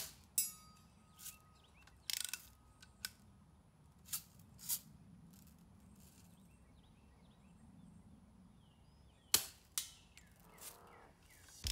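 Daisy Buck 105 spring-air BB gun being fired and worked at a range of metal targets: a string of sharp snaps and clicks, irregularly spaced, with the loudest at the very start and about nine and a half seconds in. Early on one hit leaves a thin metallic ring lasting about a second and a half.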